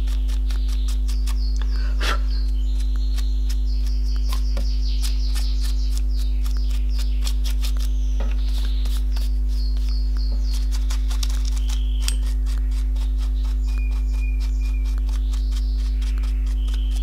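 A steady low electrical hum with many faint, irregular clicks and crackles over it.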